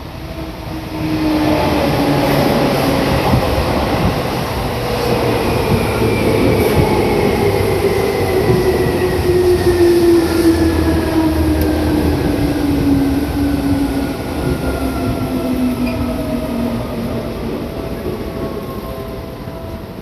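Seibu Shinjuku Line electric train passing over a level crossing, coming in about a second in and fading near the end, its motor whine falling slowly and steadily in pitch. The crossing's warning bell rings throughout.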